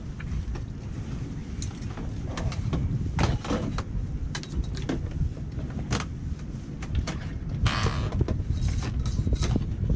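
Scattered clicks, knocks and light clatter from handling a crab gauge, wire crab pots and a cooler, over a steady low wind rumble on the microphone, with a short scraping rush about eight seconds in.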